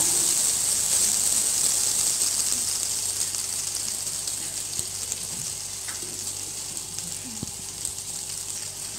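Butter and a little vegetable oil sizzling in a frying pan as the butter melts: a steady hiss that slowly grows quieter.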